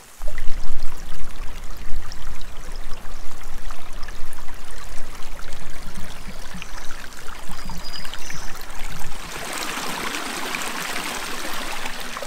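Small rocky woodland brook running and babbling over stones, a steady hiss that is clear and even for the last few seconds. For about the first nine seconds a loud, gusty low rumble sits over it.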